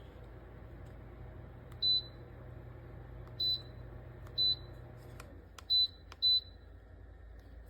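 Five short electronic beeps, all at the same high pitch and spaced irregularly, from the Ayovoch ceramic tower space heater's controls answering button presses. A few sharp clicks come with them, over the heater's steady low hum, which drops slightly in pitch about five seconds in.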